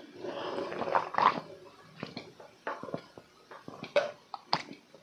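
A man chugging a large glass of juice: a slurping sip at the start, then a run of irregular gulps and swallows, the sharpest near the end.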